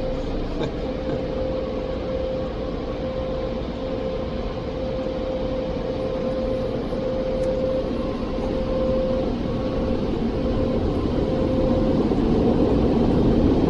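Automatic drive-through car wash machinery heard from inside the car: a steady rushing noise with a constant hum that grows louder near the end.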